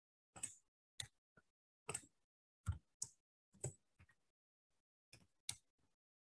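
Faint, irregular clicks and taps, about a dozen, with near silence between them; the sharpest comes a little under three seconds in.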